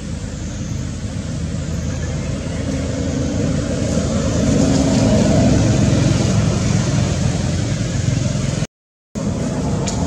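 A motor vehicle going by: a steady engine rumble that swells to its loudest about halfway through, then eases off. The sound drops out completely for a split second near the end.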